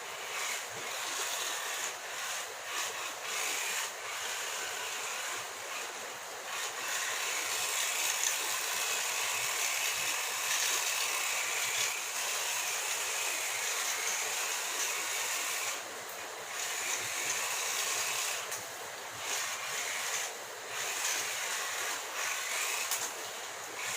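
Tiny 1:43-scale RC car's electric motor and wheels running as it drives, a high hissing whine that swells and dips with the throttle.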